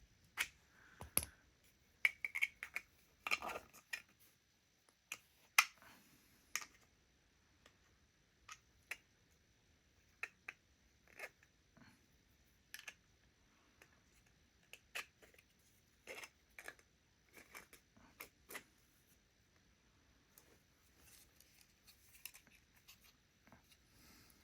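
Lock picks working in the keyway of a pin-tumbler challenge lock: sparse, irregular small metal clicks and light scrapes, sometimes two or three in quick succession.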